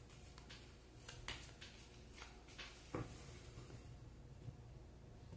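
Faint soft clicks of a Lenormand card deck being shuffled by hand, with a soft tap about three seconds in as a card is laid on the table, over a faint low steady hum.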